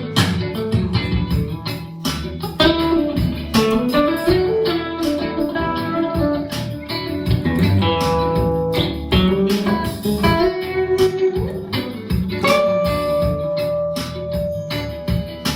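Electric guitar, a 2021 Classic Vibe with upgraded parts, playing a single-note lead line with string bends. It ends on one long held note over the last few seconds.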